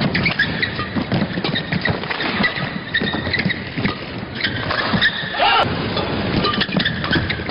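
Badminton doubles rally: rackets smacking the shuttlecock in quick exchanges and players' shoes thudding and squeaking on the court mat, with a short shoe squeal about two-thirds of the way through, over a steady crowd hubbub.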